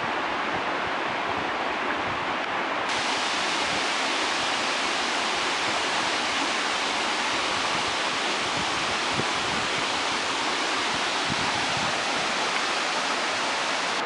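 Steady rush of fast, muddy creek water sheeting over a bedrock streambed. About three seconds in the hiss turns brighter and fuller and stays that way.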